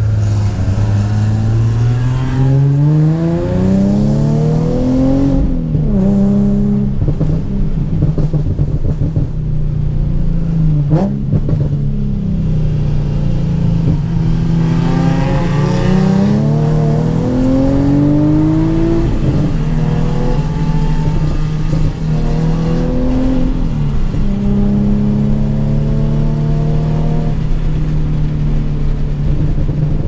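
Infiniti G37's V6 engine, heard from inside the cabin, revving up hard three times and dropping in pitch at each upshift. Short exhaust pops and crackles come in the lull between the first and second pulls. It settles to a steady cruise near the end.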